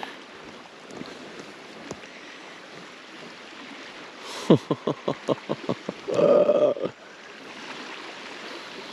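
Steady outdoor wash of wind and small waves on a lakeshore. About halfway through there is a quick run of about eight short sounds, each falling in pitch, followed by a brief held tone.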